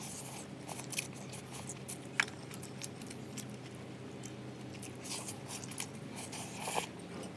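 Instant noodles being slurped off chopsticks and chewed, in short noisy slurps near the start, about five seconds in and again near the end, over a steady low hum.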